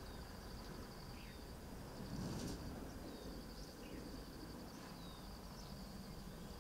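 Faint outdoor ambience: an insect's steady, fast-pulsing high trill, with a few short falling bird chirps and a brief burst of noise about two seconds in.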